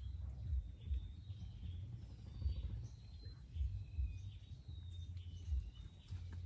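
Small birds chirping and whistling in short scattered calls over an uneven low rumble of wind on the microphone.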